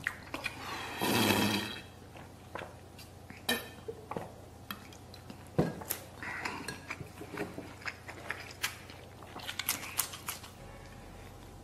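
A man drinking from a plastic water bottle, with one louder noisy swallow about a second in, then quiet chewing and scattered small clicks and taps of eating.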